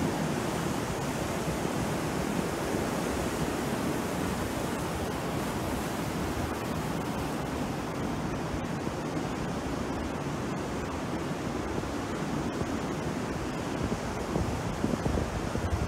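Sea surf breaking and washing up the beach, a steady rushing noise with a few louder crashes near the end.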